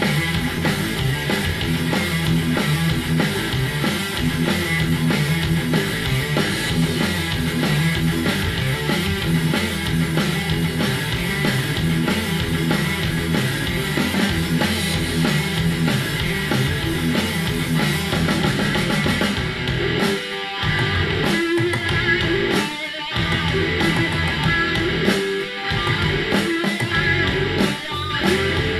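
Metal/stoner rock track with a repeating guitar riff and drum kit, played back through Sharp CP-C411H bass-reflex bookshelf speakers and picked up in the room. The riff breaks off for a few short stops after about twenty seconds.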